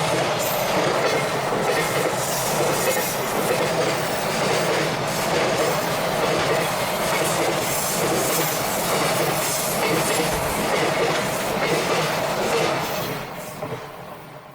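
Freight train's wagons rolling past, wheels clattering steadily over the rails, the sound fading away near the end.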